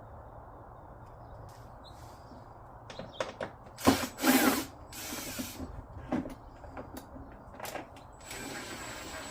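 Power screwdriver running in short bursts, driving a screw into the plastic body, with clicks and knocks of plastic parts being handled. A steady whirring run starts near the end.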